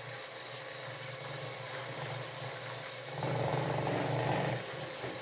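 Electric butter-churning machine's motor running steadily as it churns curd into butter and lassi, the butter not yet formed. It gets louder for about a second and a half past the middle.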